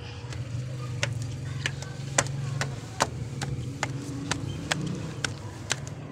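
Footsteps climbing concrete stairs, sharp slapping steps about twice a second, over a low steady hum.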